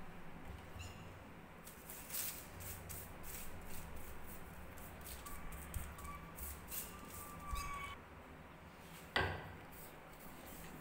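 A thin plastic bag spread on a countertop crinkling and rustling as a hand rubs cooking oil over it, in runs of quick crackles through the middle. There is a single sharp knock about nine seconds in.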